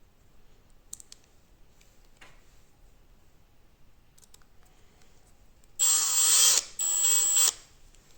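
Small electric screwdriver running in two short bursts of under a second each, about six seconds in, driving an M3 screw into a 3D-printed picatinny rail. Before them come faint clicks of handling parts.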